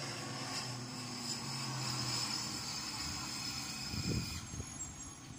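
Garbage truck's diesel engine running steadily as the truck drives along the road, with wind on the microphone and a brief low rumble about four seconds in.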